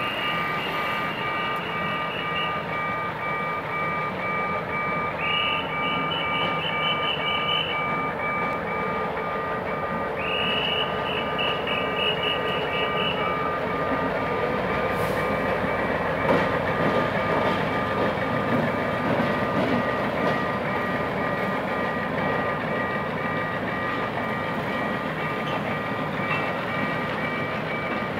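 Level-crossing warning signal beeping steadily while a GM G-22 diesel-electric locomotive rumbles slowly across the crossing. The rumble grows loudest about halfway through as the locomotive passes, then passenger coaches roll by.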